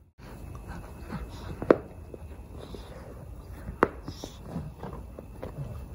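Two Cavalier King Charles Spaniel puppies tugging and chewing a plush frog toy: soft scuffling and mouthing sounds, with two sharp clicks about two seconds apart.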